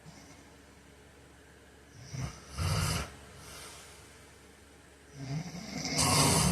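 A man snoring in his sleep: two loud snores about three seconds apart, each building up before its loudest part. The second snore is longer and louder.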